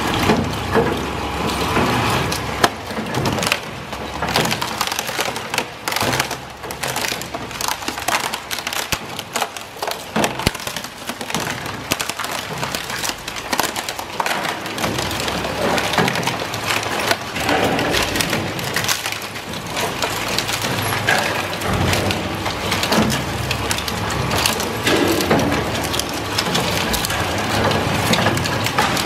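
Industrial twin-shaft shredder crushing and tearing through a boxed LED tube light fitting, its plastic housing and cardboard packaging breaking up in a dense, irregular run of cracks and snaps.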